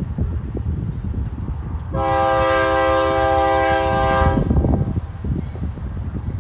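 Diesel freight locomotive's air horn sounding one long blast of about two and a half seconds, a chord of several notes, about two seconds in. Under it runs a steady low rumble from the approaching train.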